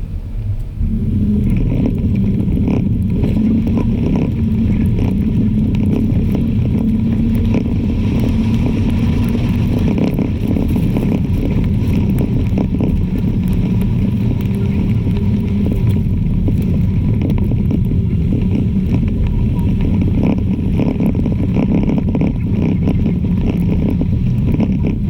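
Snowplow truck's engine running steadily, with frequent small knocks and rattles.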